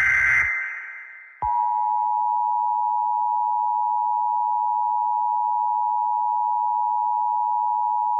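The last burst of an Emergency Alert System SAME digital header, a warbling data squawk with an echo tail, ends about half a second in. About a second later the EAS attention signal starts: a steady two-tone 853 and 960 Hz tone held at constant level, announcing an emergency message.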